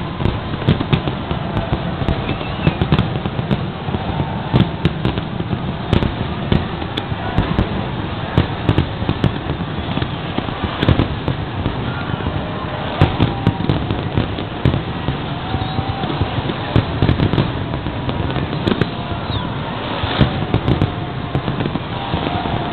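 Aerial fireworks shells bursting in an unbroken barrage, many sharp bangs close together at an irregular pace.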